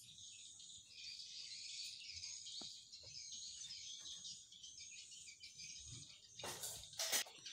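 A steady, high-pitched chorus of chirping insects, with a few faint clicks in the middle and a couple of short rustling noises near the end.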